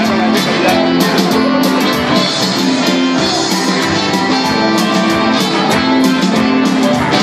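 A band playing an upbeat song with guitar and keyboard over a steady drum beat.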